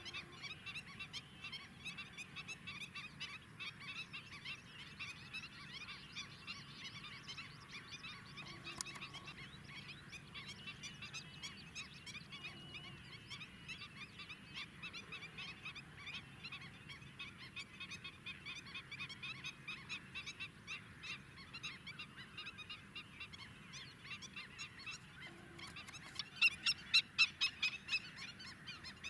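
Flock of greater flamingos calling continuously in a dense, goose-like honking chatter, with a louder run of rapid honks near the end.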